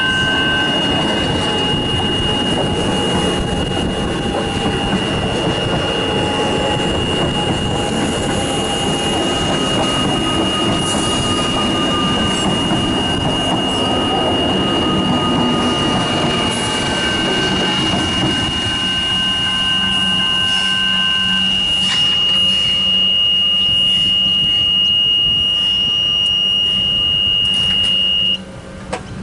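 Level-crossing electronic bell (General Signals E-bell) ringing continuously at one high pitch while a suburban electric train rumbles past, the rumble fading away over the first twenty seconds or so. The bell stops near the end, its signal that the boom gates are rising.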